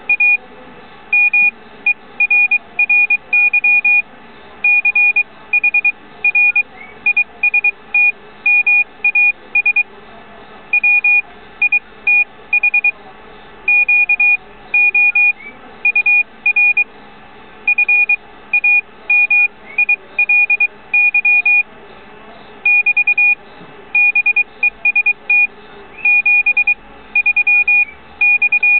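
Morse code sent by hand on a brass paddle key: a steady-pitched sidetone beeping in dots and dashes, spelling out a CW message.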